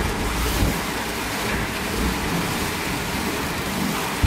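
Spindleless log debarker and rounding machine running, its hydraulically pressed knife shaving bark and wood from a turning log. It makes a steady, dense hiss of cutting over a low machine rumble.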